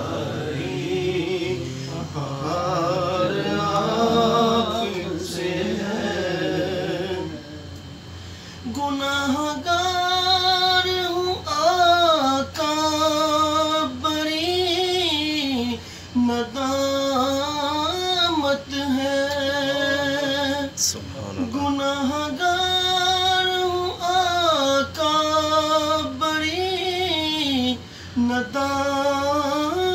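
Unaccompanied naat, a devotional song in praise of the Prophet: several men's voices sing together for the first few seconds, then one man sings solo in a high voice with long, ornamented held notes and short breaks for breath.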